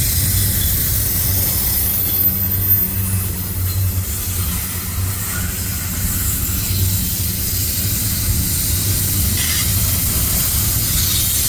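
Freight train cars rolling past: a steady low rumble with a hiss over it.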